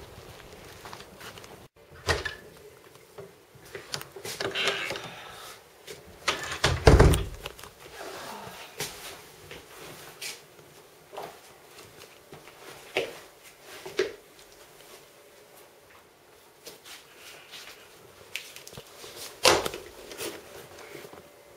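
Scattered knocks, bumps and handling noises of someone moving about a room among wooden chairs, with one heavy thump about seven seconds in.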